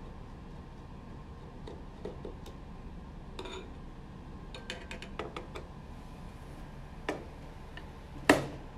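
Light metallic clicks and ticks of a screwdriver working the screws that hold a circuit board in a sheet-metal enclosure, with a quick run of clicks about halfway through and one much sharper click near the end.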